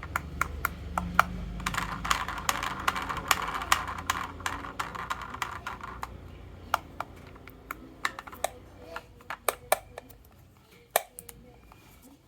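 Toy vehicles rolling and clattering down a wooden HABA marble-run slope. A steady rolling rattle with rapid clicks lasts about the first half, then gives way to scattered separate clicks as the run thins out.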